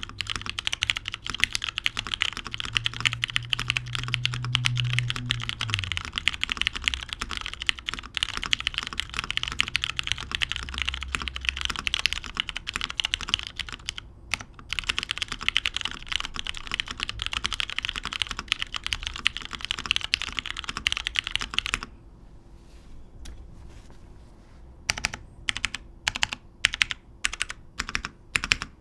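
Custom Merisi Works 500c mechanical keyboard with lubed Cherry MX Brown switches, an aluminium top-mount plate and PBT keycaps, being typed on quickly and continuously. There is a short break about halfway through. About three-quarters of the way in the typing stops for a few seconds, then slower, separate keystrokes resume near the end.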